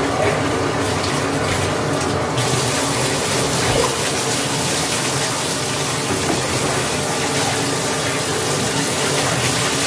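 Shower running behind the curtain: a steady rush of falling water.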